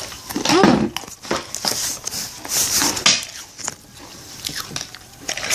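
Someone biting into and crunching a crisp Yan Yan biscuit stick, with irregular crackly crunches.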